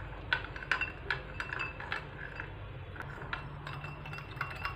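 Metal spoon stirring sugar and water in a small ceramic bowl, clinking against the sides in quick, irregular strokes as the sugar dissolves into simple syrup.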